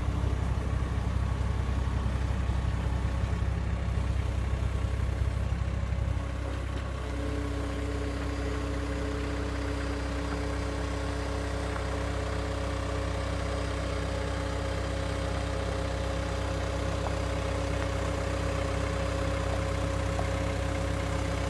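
Skid steer engine running steadily. About six seconds in its sound drops slightly, and a steady higher tone joins it soon after.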